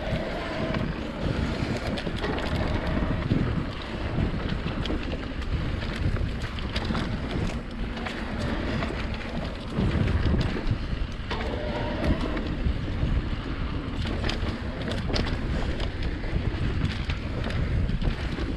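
Wind buffeting the microphone on a moving mountain bike. Under it are a steady rumble and frequent small knocks and rattles from the bike rolling over rough dirt trail.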